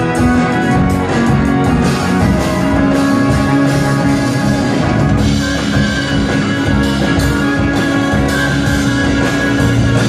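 Live rock band playing, with electric guitars over a drum kit, recorded from within the audience at a club show.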